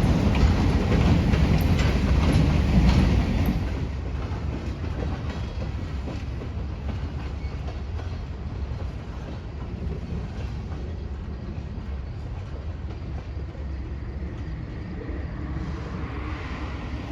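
Freight train rolling past, its wheels clicking over the rail joints. About three and a half seconds in, the sound drops to a quieter, steady rumble as the train moves away.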